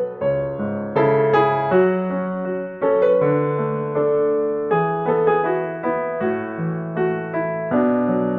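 Background piano music: a slow melody played over chords, each note struck and dying away.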